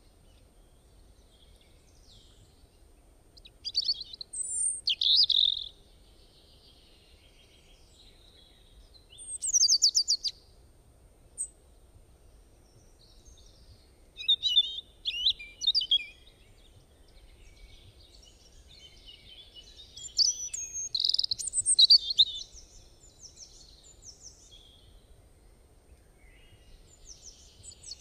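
Small birds singing: short phrases of high, quick chirps, one every five seconds or so, with near quiet in between.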